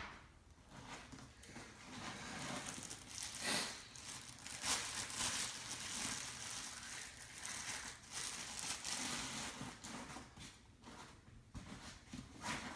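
Packaging being handled during an unboxing: irregular crinkling and rustling of wrapping, swelling and fading for most of the stretch.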